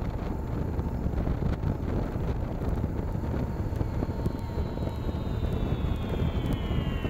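BMW motorcycle riding along a street, heard from a handlebar-mounted camera: steady engine rumble and wind buffeting the microphone. A high tone slowly falls in pitch from about halfway through.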